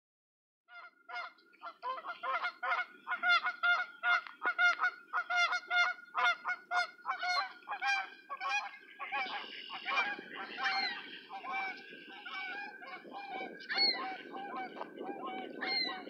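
Canada geese honking in a rapid run of calls, starting about a second in. Past the middle the honks come less often, over a low rushing noise.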